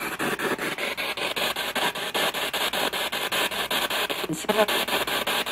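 Spirit box sweeping through radio frequencies: a rapid, even chopping of static, several bursts a second, with a brief snatch of voice about four and a half seconds in.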